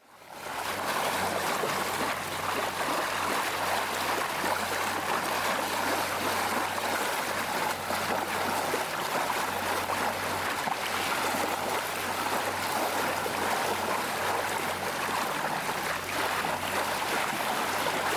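Water rushing along the hull of a sailboat under way: a steady rushing wash that fades in at the start, with a faint low hum underneath.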